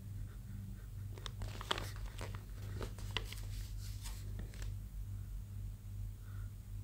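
Paper pages of a notebook crinkling and crackling as they are bent and turned by hand, in a quick run of crisp rustles that dies away, over a steady low hum.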